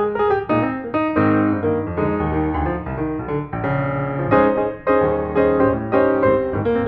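Piano music: a quick, continuous run of notes and chords.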